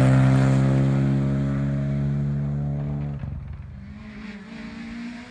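Rally car engine at full throttle, its note steady and fading as the car pulls away. About three seconds in the throttle shuts abruptly, and a quieter, lower engine note rises near the end.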